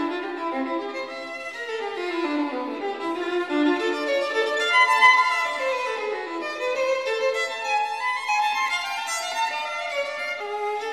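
Background music: a violin playing quick runs of notes up and down.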